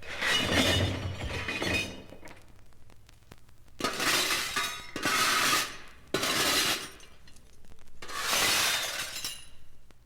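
Glass breaking five times in a row. The first crash, right at the start, has a heavy low thump; four more smashes with tinkling shards follow between about four and nine seconds in.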